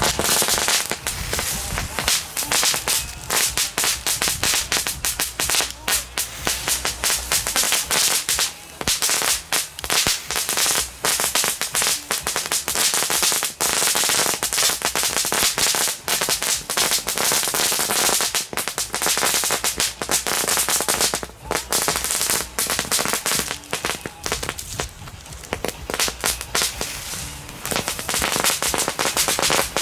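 Several Vulcan Cracker Jack crackling whips (F1 crackle-string fireworks) burning on the ground, giving a dense, continuous run of rapid small pops and crackles with only brief lulls.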